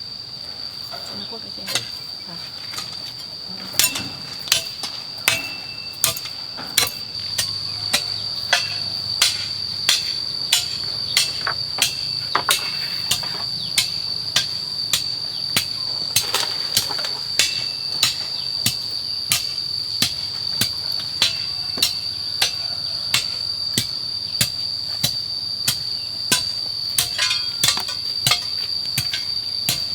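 A hammer driving nails, steady strokes about one and a half a second, as bamboo slats are nailed up into a wall. Insects chirr steadily and high-pitched in the background.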